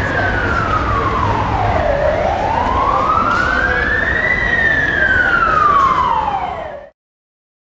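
Emergency vehicle siren wailing, a slow rising and falling tone. It peaks about four seconds in and drops through two long falls. It cuts off abruptly near the end.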